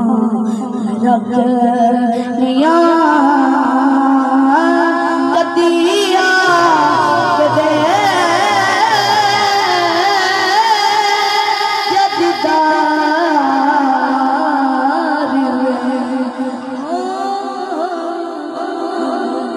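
A boy singing a Punjabi naat unaccompanied into a microphone, amplified through loudspeakers. He holds long, ornamented notes with vibrato and slides between them.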